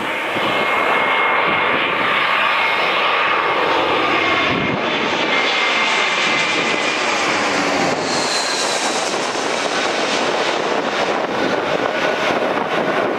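Airbus A321-200 airliner's twin jet engines passing low overhead on final approach, gear down: a loud, steady jet roar. A high whine heard as it comes in drops lower in pitch once it has gone over and moves away.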